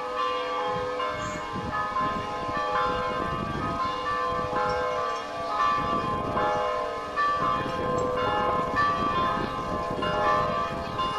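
Several church bells ringing together in a continuous peal, strike following strike with each tone ringing on under the next.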